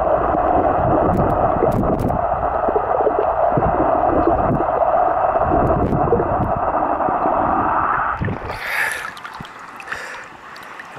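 Muffled water noise picked up by a camera held underwater in a swimming pool, with low irregular thuds of movement in the water. About eight seconds in, the camera breaks the surface and the sound turns to splashing and dripping water, clearer and quieter.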